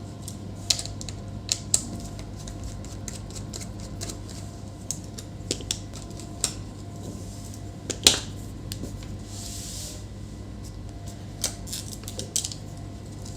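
Scattered sharp clicks and taps of laptop plastic and metal parts being handled as the display assembly is taken off, the loudest about eight seconds in, over a steady low hum.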